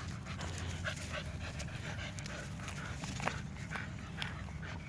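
American Bully dogs panting in quick, short breaths, over a steady low rumble.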